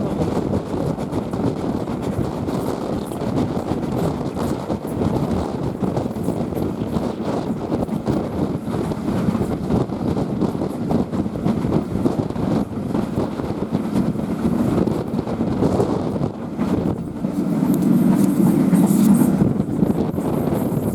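Passenger train carriage running along the line, heard from on board: a steady rumble and rattle of wheels on the track. A louder, deeper rumble swells for a few seconds near the end.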